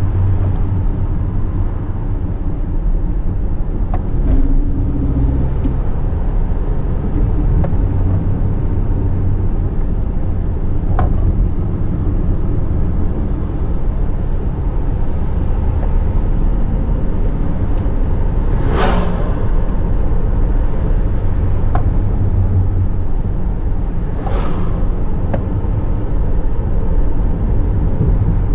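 Car driving, heard from inside the cabin: a steady low engine and road rumble. Two short whooshes come through, one about two-thirds of the way in and one near the end.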